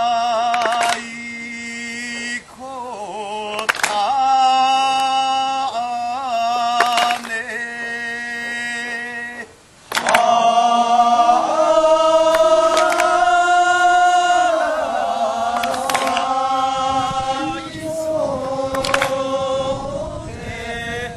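Voices chanting or singing in long held, wavering notes, punctuated by a sharp struck sound about every three seconds.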